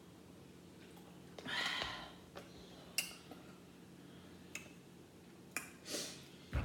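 A breath out after a drink of water, then a few light clicks and taps, the sharpest about three seconds in, as a plastic water bottle is set down on a wooden table.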